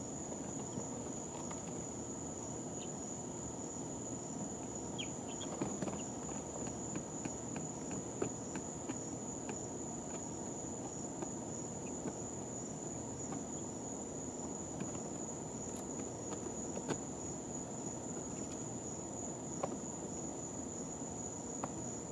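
Brooder ambience: a steady high-pitched whine over a low hiss, with scattered soft ticks and taps from day-old chicks stirring. A quick run of taps comes about six to nine seconds in, and a faint chirp or two about five seconds in.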